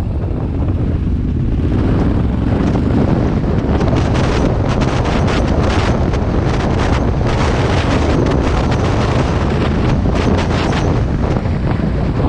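Wind buffeting the microphone of a motorcycle riding up a gravel track, over a steady low rumble of the bike. Through the middle the noise turns rough and crackly.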